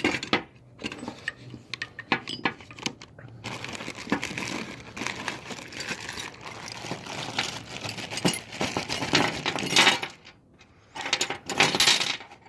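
Small steel rifle parts from an AK-pattern parts kit (pins, hammer, muzzle brake, trigger guard) clinking and rattling as they are handled and laid out, with many sharp clicks and a busy stretch of rustling and scraping in the middle.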